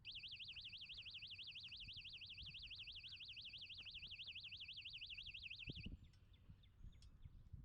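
Electronic warbling alarm tone, its pitch swinging up and down about six times a second, sounding for nearly six seconds and then cutting off suddenly.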